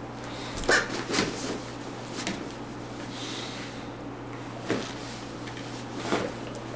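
Large dog shaking and chewing a plush stuffed toy on a rug: a few scattered short thumps and rustles.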